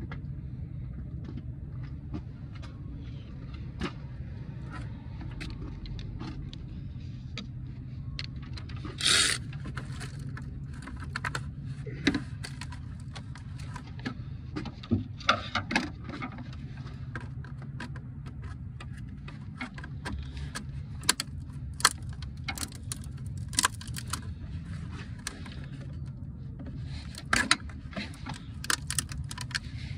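Metal clinking, tapping and rattling as a Chevy Suburban alternator is worked loose and lifted out of the engine bay, with a brief loud scrape about nine seconds in. A steady low hum runs underneath.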